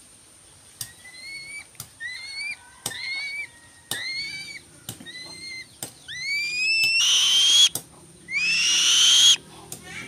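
Young black-winged kite calling: four short, rising whistled squeals about a second apart, then three longer rising screeches, the last two the loudest and harshest.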